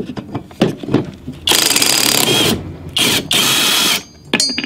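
Cordless 24-volt impact tool hammering in two bursts of about a second each as it loosens a lawn mower's blade bolt, after a few light clicks as the socket is fitted. A short metallic clink follows near the end.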